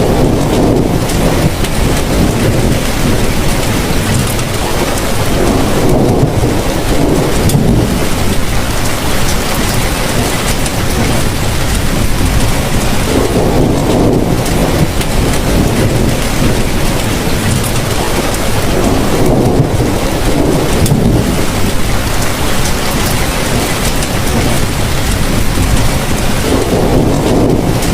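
Heavy rain pouring steadily, with low rumbles that swell up every six or seven seconds.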